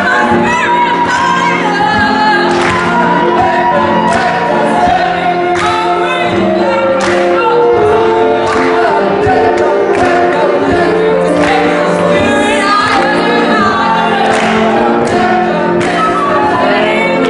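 A large group singing together in chorus, with a woman's voice leading through a microphone and a sharp beat about every second and a half.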